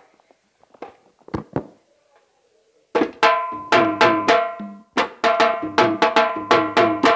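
Double-headed barrel drum played by hand. A few scattered single strokes come first, then about three seconds in a steady rhythm of ringing strokes at roughly three to four a second.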